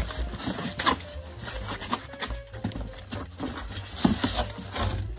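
A polystyrene foam packing block being worked out of a cardboard box: irregular scraping and squeaking of foam against cardboard, with knocks from the box.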